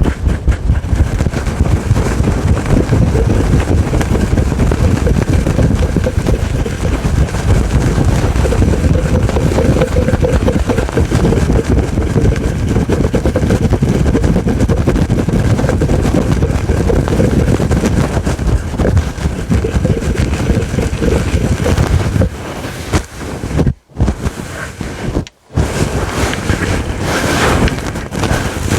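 Fingers scratching fast and hard on a fluffy microphone windscreen, heard as a dense, loud rustling rumble close on the mic. It stops twice briefly about five and three seconds before the end.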